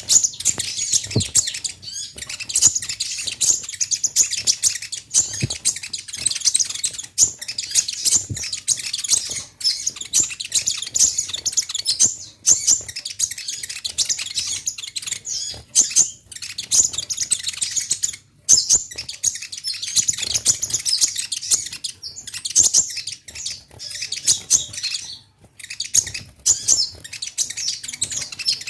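Kolibri ninja (konin), a small sunbird, singing full and energetically: a rapid, near-continuous stream of high chirps and twitters with a few short breaks.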